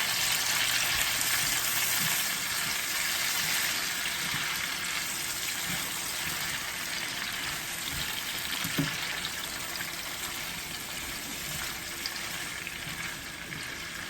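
Vegetables sizzling in hot oil in a pan for a fish sauce, a steady hiss that slowly grows quieter, with one light knock about nine seconds in.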